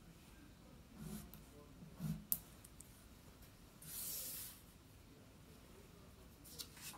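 Wax crayon scratching on a paper card in two short strokes, followed by a sharp click. About four seconds in, the card slides across a wooden tabletop with a brief swish, and a couple of light taps come near the end as it is set down.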